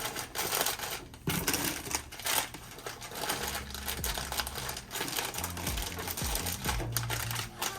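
Irregular rapid clicking and rattling, with small knocks, from vending machine parts and snack packets being handled while the machine is restocked.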